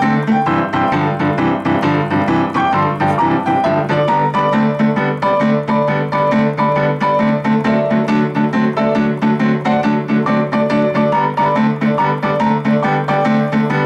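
Steinway Model D concert grand piano playing boogie-woogie: a fast right-hand trill over a driving, evenly repeated left-hand figure meant to imitate a train.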